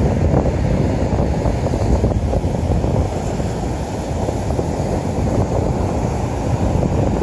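Distant rumble of an Atlas V rocket climbing away after launch: a steady low rumble with a fine crackle and no breaks.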